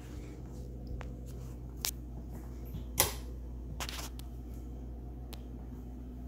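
Handling noise from a phone camera carried through a room: a few clicks and knocks, the loudest about three seconds in and a short rustle just after, over a steady low hum.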